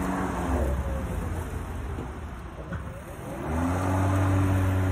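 Erbauer ELM18-Li 36V cordless lawnmower's electric motor and blade running, then winding down in pitch over a couple of seconds and spinning back up to full speed about three and a half seconds in.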